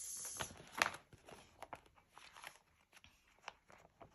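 Clear plastic binder pocket pages being handled, rustling and crinkling. A short rustle opens, then a sharper tick comes just under a second in, followed by scattered light ticks and taps.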